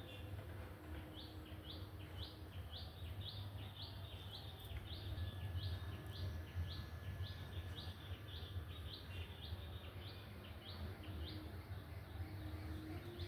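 A bird repeating a short, rising chirp about twice a second for most of the stretch, over a steady low rumble.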